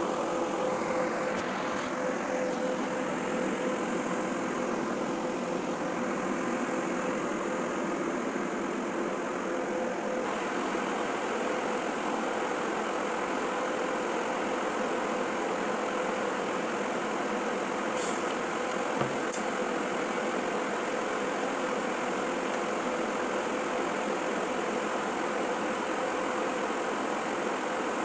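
Welding arc running steadily: an even hiss with a steady hum through it, broken only by two brief clicks about two thirds of the way in.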